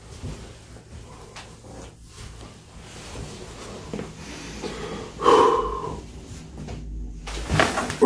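A man's forced, voiced exhale, a short grunt about five seconds in, as his body is compressed for a chiropractic spinal adjustment. Before it there are faint rustles of clothing and the padded table.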